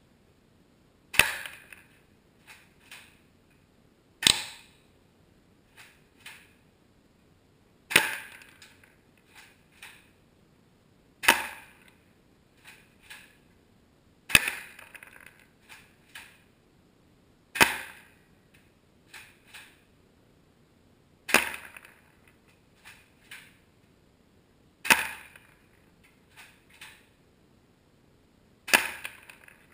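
Bravo tri-shot airsoft shotgun firing nine times, one sharp shot about every three and a half seconds, each followed by two or three fainter clicks.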